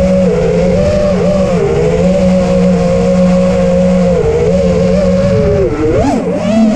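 FPV freestyle quadcopter's motors and propellers whining, heard through the onboard camera's microphone. The pitch wavers with the throttle and swings up and down sharply about six seconds in.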